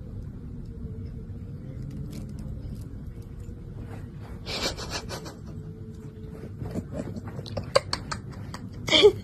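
A cat licking and chewing at food held in a plastic-bagged hand, with crinkling of the plastic bag: a burst of crackly rustle about halfway through and scattered small clicks of licking and chewing after it. A short louder pitched sound comes near the end.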